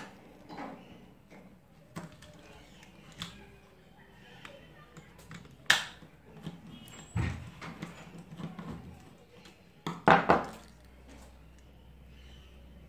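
Screwdriver and plastic switch board being handled while terminal screws are tightened on a wire loop: scattered small clicks and knocks, with a sharp click about halfway through, a dull knock a second and a half later, and two louder knocks about ten seconds in.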